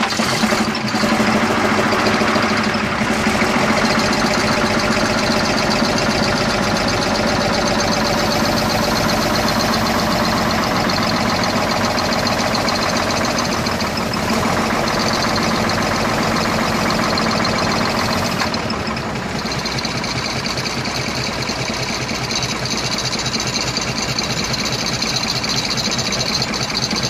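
Renault AE 385 truck's diesel engine idling steadily, freshly started. Its level drops a little about eighteen seconds in.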